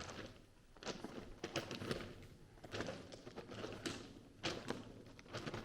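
Footsteps on loose gravel at a walking pace, one step roughly every half second to second.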